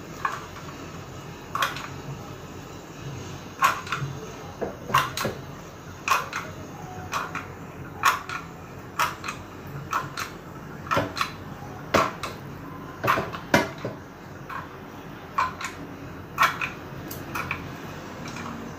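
Hand-held lever-type sev press being squeezed over and over as besan dough is pushed through its die, its handle and mechanism giving sharp clicks, roughly two a second and often in pairs.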